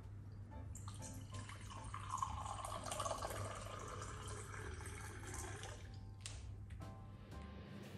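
Water poured into a drinking glass: a steady splashing stream lasting about five seconds that stops a little before the end, followed by a few light clicks.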